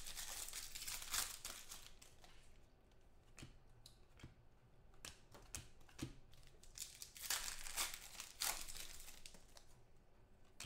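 Foil wrapper of a football trading-card pack crinkling and tearing as it is opened, densest in the first two seconds. Then the cards are flicked through by hand, with light snaps and more bursts of crinkling.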